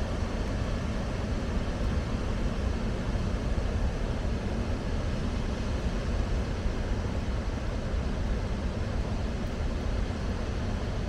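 Steady rush of water released through the Đa Nhim dam's open spillway gates, a constant rumbling noise strongest in the deep low end.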